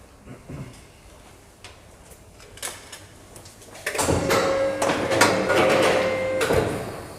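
Small clicks and knocks, then about four seconds in a machine starts a loud steady whine with a rattle. It stops about two and a half seconds later.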